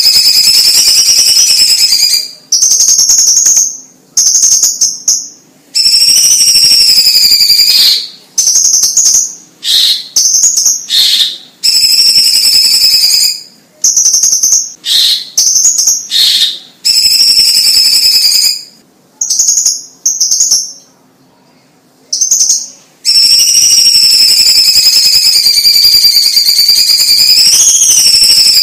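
Cucak cungkok leafbird singing loud, high, wavering whistled trills. The song starts in an unbroken roll, breaks into many short phrases with brief silences through the middle, then settles into one long unbroken roll near the end.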